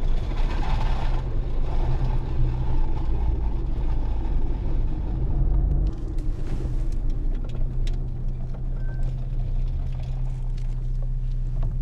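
Car interior rumble: a steady low drone of engine and road noise heard from inside the cabin, its sound shifting about six seconds in, with a few faint clicks afterwards.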